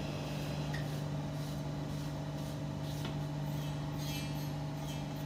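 A steady low machine hum from running kitchen equipment, with a few faint light rubs and clicks as a paper towel wipes leftover chocolate off a metal guitar cutter.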